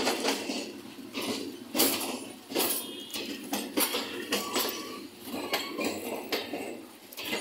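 Passenger train coaches rolling past, their wheels clanking over the rail joints in a run of sharp, unevenly spaced metallic clanks and clinks, several a second.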